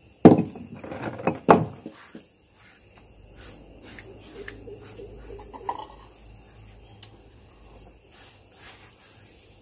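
A hand scraping and gathering wet ground masala paste off a flat stone grinding slab, soft scraping and squishing on the rough stone. Two louder thumps come near the start, then quieter scattered rubs and clicks.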